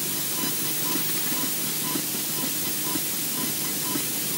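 Steady hiss of electrical interference on a nest camera's microphone, with faint regular pulses in it: a short tone about twice a second and a soft tick about once a second.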